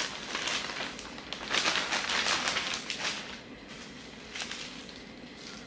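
Packaging and cloth rustling and crinkling as a garment is unwrapped by hand. The busiest stretch comes about two seconds in, with a short burst near the end.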